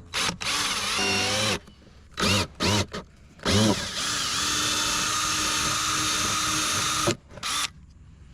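Power drill with a small bit drilling out the fasteners that hold the door handle in a BMW door panel. It runs in several short trigger bursts, rising in pitch as it spins up, then one long steady run of about three and a half seconds, then a brief final burst.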